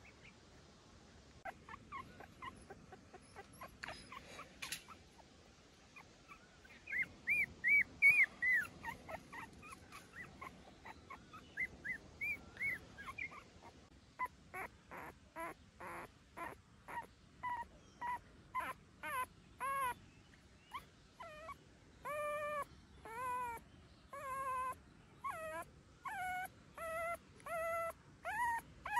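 Young puppy whimpering in short, high-pitched, arching cries. They come scattered at first, then repeat about twice a second through the second half.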